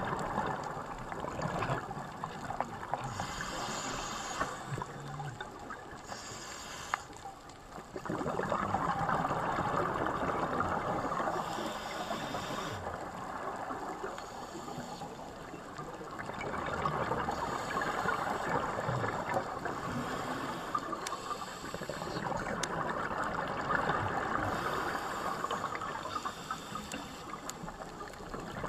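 Underwater ambience: a rushing, bubbling water noise that swells and eases every few seconds, with short hissy stretches in between.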